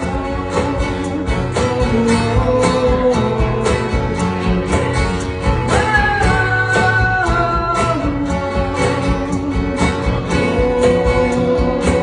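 Instrumental break in a country song: a lead guitar plays a melody over a steady drum beat and bass.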